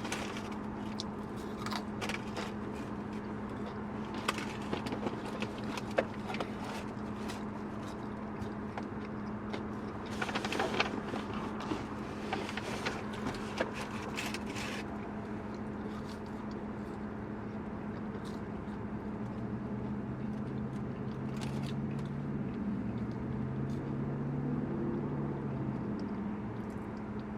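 Inside a car idling in park: a steady engine hum, joined by a second, lower hum for several seconds past the middle, with rustling and small clicks over it, loudest about ten to fifteen seconds in.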